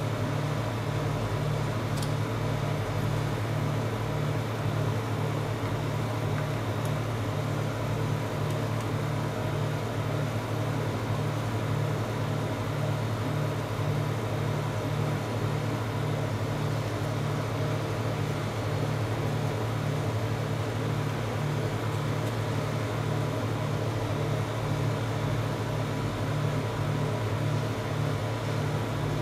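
Refrigeration unit of a rolled (fried) ice cream cold-plate machine running: a steady low hum with a regular pulsing. A single sharp click comes about two seconds in.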